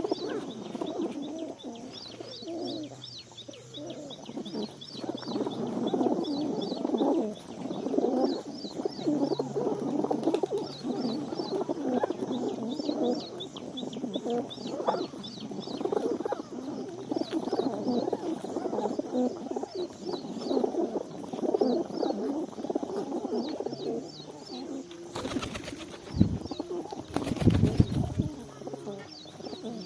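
Many pigeons cooing at once, overlapping throughout, with quick runs of small birds' high chirps above them. Near the end, two loud rushing noises cut across.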